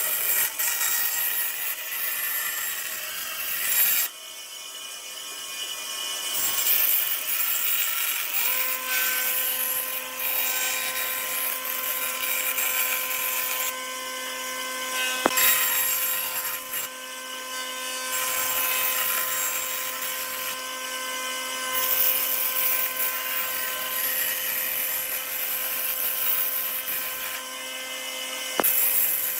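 Electric power tools working wood, with abrupt changes between several short stretches. A steady motor hum runs from about eight seconds in until shortly before the end.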